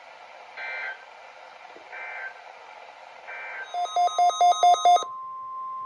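Weather-radio static hiss with three short data chirps of an emergency alert signal, then a loud rapid run of electronic beeps about four seconds in. A single steady NOAA Weather Radio warning alarm tone near 1 kHz follows, opening the weekly test message.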